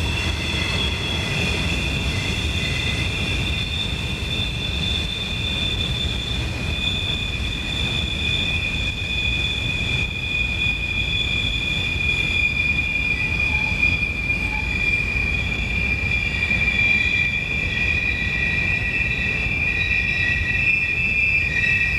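Train wheels squealing steadily as a train rolls past, several high shrill tones held over the low rumble of the cars on the rails.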